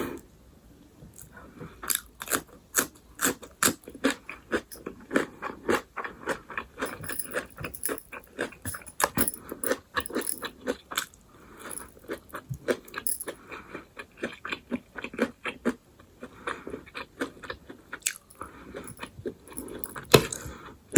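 Close-miked eating: a person biting and chewing crunchy food, a quick irregular run of crisp crunches broken by a few short pauses.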